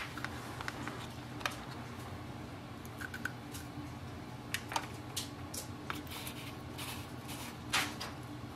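Scattered light clicks and rustles of small plastic parts being handled as a nozzle cap is screwed back onto a bottle of printer refill ink, over a steady low hum.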